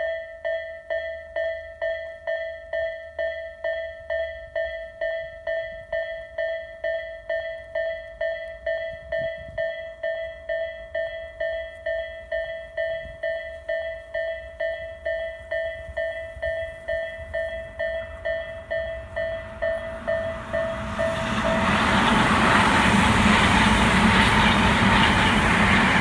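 Japanese level-crossing warning bell chiming over and over at an even, quick pace. About 20 seconds in it is drowned out by a Tobu 100 series Spacia limited express train rushing through the crossing, which is the loudest sound.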